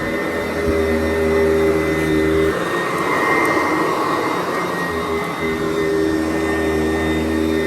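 Sanitaire SC889B upright vacuum cleaner running on carpet with a steady hum. About two and a half seconds in, the low hum drops away and a higher rushing sound takes over for a couple of seconds, then the steady hum comes back.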